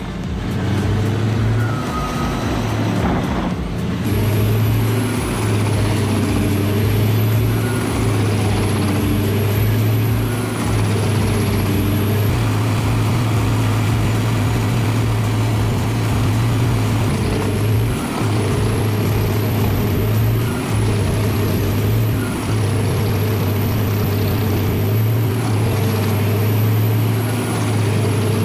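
PTH 1000/1000M drum wood chipper running, its Scania DC16 diesel engine droning steadily under load. A thin high whine wavers up and down above the engine noise.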